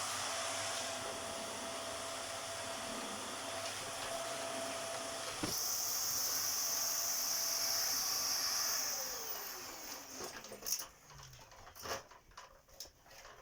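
Vax Air Stretch vacuum cleaner running with a steady whine. About five and a half seconds in there is a click and the sound shifts higher. About three seconds later it is switched off and the motor winds down with a falling whine, followed by a few knocks and clicks.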